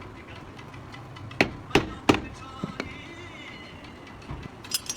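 Three sharp knocks in quick succession, each ringing briefly, followed by lighter clinks and taps, as of tools striking car parts during brake and steering repair work. Faint background music plays underneath.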